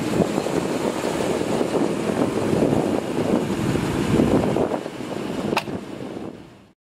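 Wind buffeting the microphone over a steady low rumble, with one sharp click about five and a half seconds in; the sound fades out near the end.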